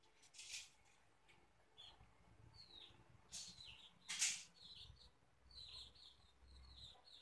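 Faint bird chirps in the background, short falling notes repeated many times, with a few brief hissy rustles, the loudest about four seconds in.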